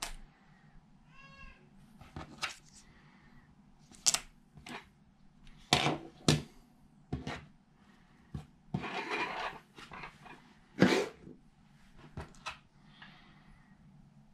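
Small objects handled and set down on a desk: a series of sharp taps and clicks, with about a second of rustling near the middle. About a second in, a short pitched meow-like cry.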